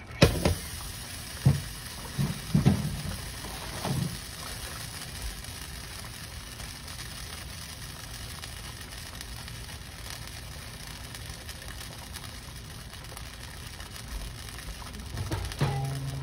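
Kitchen clatter of a plate and cooking pot: several sharp knocks in the first four seconds, then a steady hiss.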